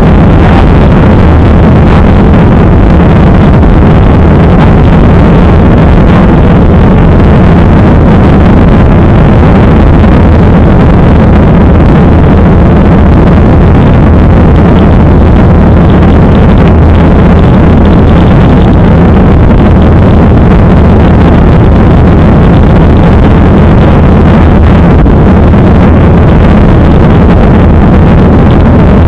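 Steady jet-airliner cabin noise, the engines and the rush of air, with a low steady hum underneath. It is recorded very loud, near the top of the recording's range, and does not change.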